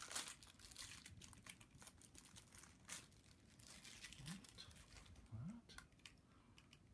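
Faint crinkling and rustling of plastic packaging being handled, with scattered small clicks.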